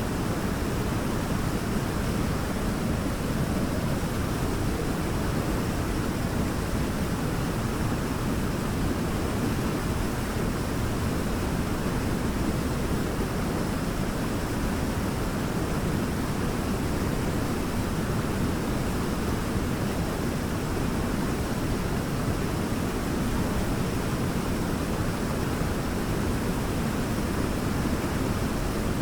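Waterfall pouring steadily: a constant, even rush of falling water, deepest in the low range, with no change over the stretch.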